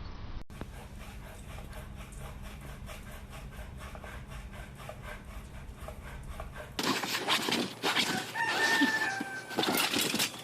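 A rooster crowing once, a call of about a second and a half that sags slightly in pitch, with clatter around it in the last few seconds. Before that, a low, steady rumble.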